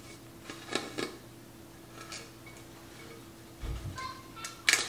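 Artificial flower stems knocking and clicking against a vase as they are pushed into it: a few short taps, some ringing briefly, with the loudest knock near the end.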